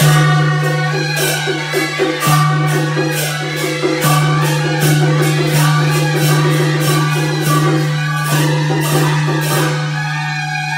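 Music with a steady, quick percussion beat over a held low note.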